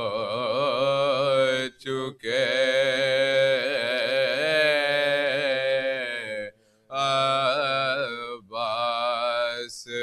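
Men chanting an Urdu marsiya (mourning elegy) unaccompanied, in long, wavering held notes. The chant breaks off briefly about two seconds in and again near seven seconds.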